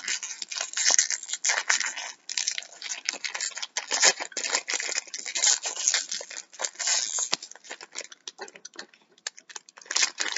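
Crinkly plastic toy packaging being torn and crumpled open by hand, a dense run of crackles that thins out near the end.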